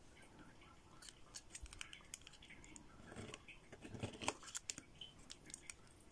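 A plastic scraper card scraping across a metal nail-stamping plate, faint, with a denser stretch of scraping about three to four and a half seconds in, among scattered small clicks of handling.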